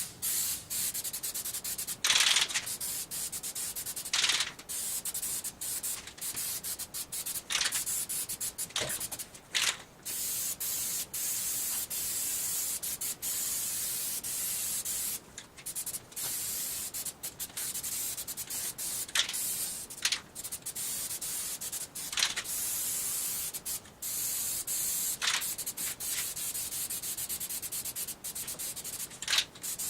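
Aerosol spray can of primer hissing in long passes over a plastic bumper cover, stopping briefly between strokes, with a dozen or so short louder puffs.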